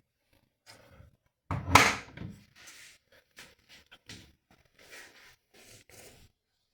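A heavy thunk about two seconds in, followed by a series of lighter knocks and clicks as a washing machine is handled.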